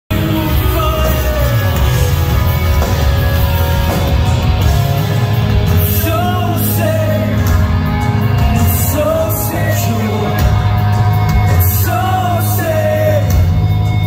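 Live rock band playing loudly, heard from the audience: amplified electric guitars, bass and drums under sung and shouted vocals.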